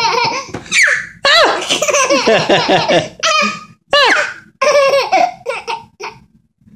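Baby laughing hard in several bursts, with high-pitched squeals that fall in pitch.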